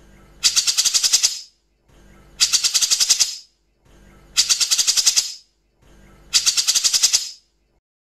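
Grey-cheeked bulbul (cucak jenggot) giving its harsh rattling 'tembak' call: four bursts of about a second each, about two seconds apart, each a fast string of about ten high, rasping notes.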